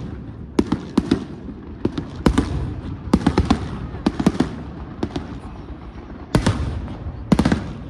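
Fireworks on a castillo firework tower going off: irregular clusters of sharp cracks and bangs, with a steady hiss between them.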